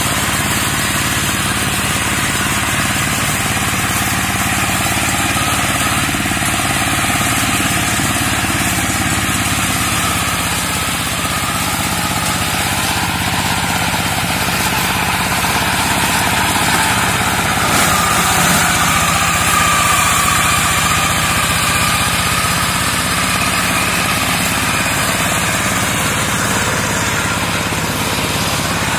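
Two-wheel hand tractor converted into a land-clearing mower, its single-cylinder diesel engine running steadily under load as it cuts through undergrowth.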